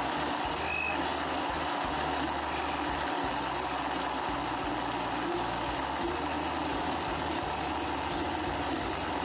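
Countertop electric blender running steadily, blending an iced drink.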